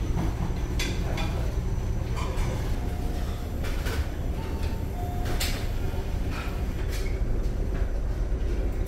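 Steady low drone of a ferry's engines carried through the ship, with scattered clinks and knocks of tableware and serving utensils.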